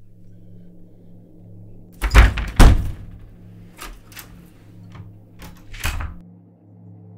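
An interior door being handled: two heavy thumps about two seconds in, a few lighter handle and latch clicks, and another thump as it shuts near the end. A low steady hum sits underneath throughout.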